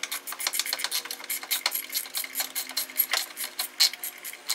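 Socket ratchet clicking rapidly in quick uneven runs as a 10 mm bolt is turned down until it is snug.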